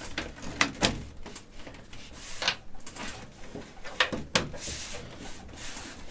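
Hands working on a PC case: rubbing and rustling of cables and parts, broken by several sharp clicks and knocks of plastic and metal.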